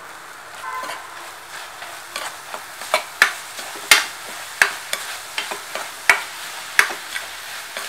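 A spatula stirring grated coconut into bubbling jaggery syrup in a nonstick pan, under a soft sizzle. From a little way in it gives sharp scrapes and knocks against the pan about every 0.7 seconds, while the coconut-jaggery filling cooks.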